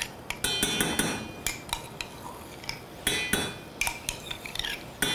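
Metal spoon knocking and scraping against a plastic measuring cup and the rim of a stainless steel saucepan, with several ringing clinks, as a cream and cornstarch mixture is scraped into the pan.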